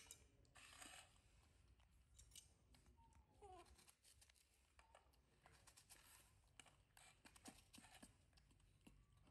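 Very faint crisp crunches and clicks of a knife cutting through raw guava and of the fruit being bitten and chewed. A short, faint falling squeak about three seconds in.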